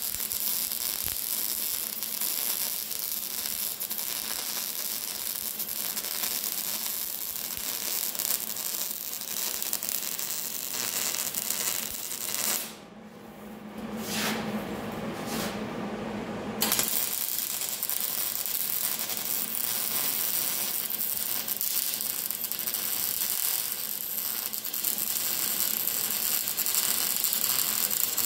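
Wire-feed (MIG) welder arc crackling steadily as a bead is run along steel pipe, stopping for a few seconds about halfway through and then starting again.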